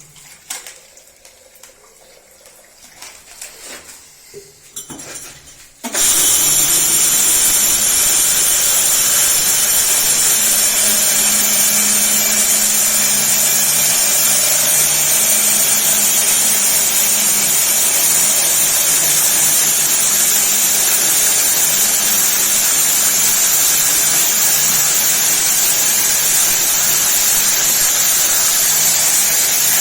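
KEN 6110B diamond core drill with a 76 mm wet core bit starts suddenly about six seconds in and then runs steadily, cutting into reinforced concrete with water fed to the bit: a loud, even hiss over a steady motor hum. Before it starts there are only a few faint knocks.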